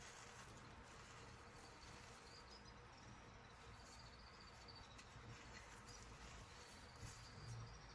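Faint high-pitched chirping trills, heard three times over quiet room tone; no crunching.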